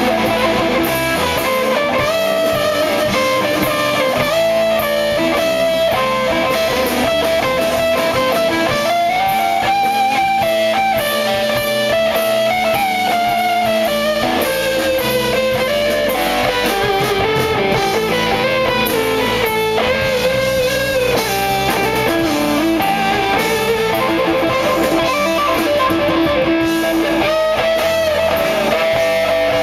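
Live blues-rock band: a Les Paul-style electric guitar plays a long lead solo of held notes that bend up and down, over drums.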